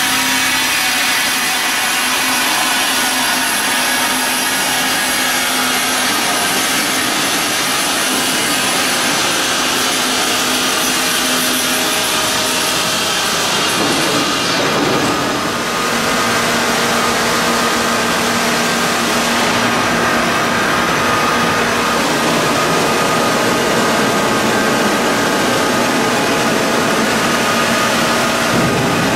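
Large diamond-segmented circular saw blade of a bridge-type stone block cutting machine running through a stone block under a water spray. It makes a steady, loud, dense saw noise with faint steady tones, which briefly dips and changes about halfway through.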